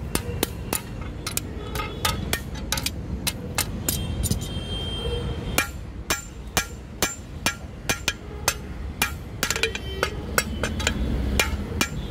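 Steel hand hammer striking the red-hot end of a 20 mm rebar on an anvil, forging the flattened tip of a crowbar. A run of sharp metallic blows, about two to three a second, some with a brief ring, and a short pause about four seconds in.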